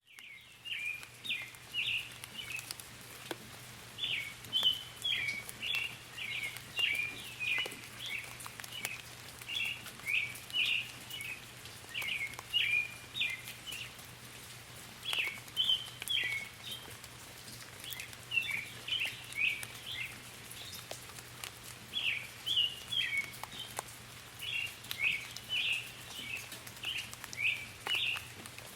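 Songbirds chirping in quick runs of short high notes, with brief pauses, over light rain pattering with scattered drop ticks.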